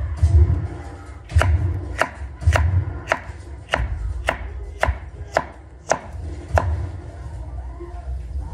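A large kitchen knife chopping on a cutting board: about ten steady strokes, a little under two a second, stopping near the end.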